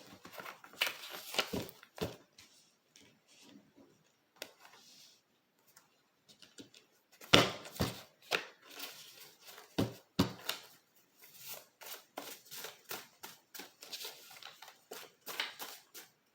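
Tarot cards being handled and shuffled: irregular quick clicks, flicks and rustles, with a few sharper snaps a little before halfway and again near two-thirds.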